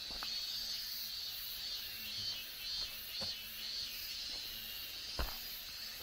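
Steady high-pitched insect chorus that swells and fades in a loose pulse. A few short footsteps on the trail sound over it, the loudest about five seconds in.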